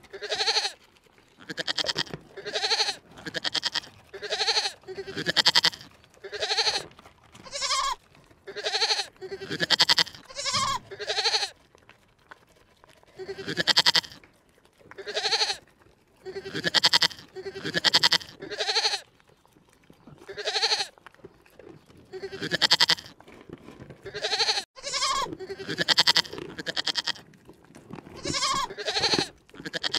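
An animal calling over and over: short pitched calls, about one a second, with a few brief pauses.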